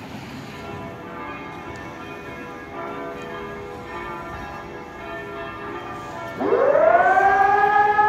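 Faint, distant sirens sounding as several overlapping steady tones; about six and a half seconds in, a Technologie 2000 eRotor 750 electronic siren starts, its tone rising quickly in pitch and levelling into a loud, steady tone: the start of the 140-second continuous test signal.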